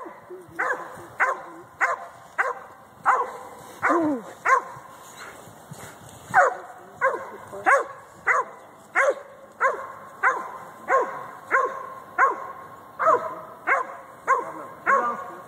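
Working dog barking repeatedly and steadily, about one and a half sharp barks a second, with a short pause about five seconds in.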